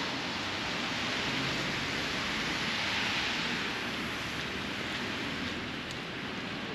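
Hiss of tyres on a wet, slushy street, swelling about three seconds in as a vehicle passes and then fading.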